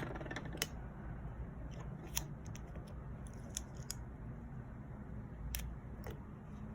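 Small sharp clicks and taps from handling the phone and tools on a workbench, spaced unevenly, over a steady low hum.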